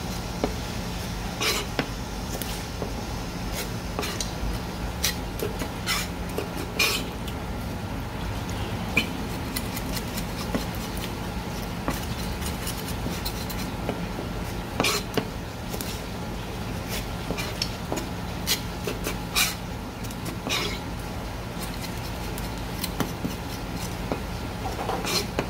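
Irregular sharp taps and clicks of a knife against a cutting board while small gizzard shad are cleaned and cut, over a steady low hum.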